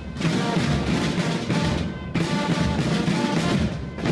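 Fasnacht Guggenmusik band drumming a loud, dense marching beat, with a short dip about two seconds in.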